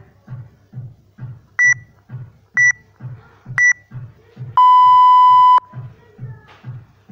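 Workout interval timer counting down the end of a rest period: three short, high beeps a second apart, then one long, lower beep of about a second that marks the start of the next work round. Electronic music with a steady beat plays underneath.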